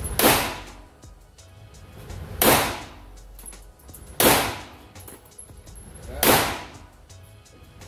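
Four single shots from a Glock 17 Gen 5 9mm pistol, spaced about two seconds apart, each with a short echo off the walls of an indoor range.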